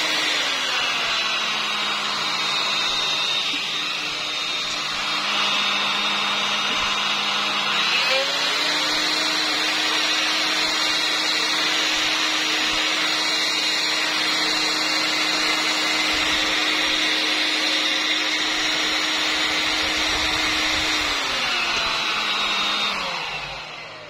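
Electrolux Ergorapido 2in1 Allergy cordless stick vacuum's motor running steadily and smoothly, with no knocking, after its fan section was cleaned. Its pitch drops about a second in and rises again about eight seconds in, then winds down and stops near the end.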